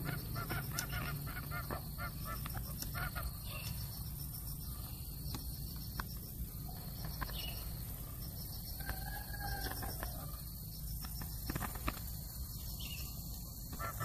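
Coucal calling: a quick run of repeated notes in the first few seconds, then one drawn-out call with a rise and fall near the middle, with scattered sharp clicks.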